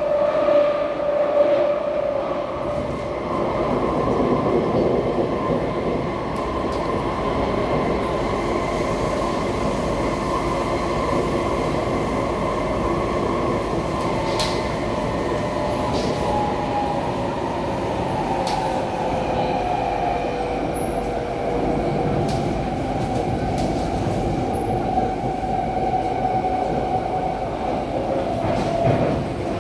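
SMRT C151C metro train running at speed, heard from inside the passenger car: steady wheel-and-rail rumble under a whine from the traction motors. The whine falls slowly in pitch in the second half, and there are a few brief clicks from the wheels and track.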